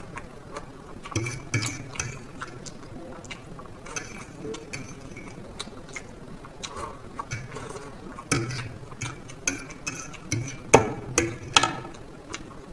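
Close-up eating of black bean noodles: wet chewing with many short, sharp clicks, coming thicker and louder in the second half.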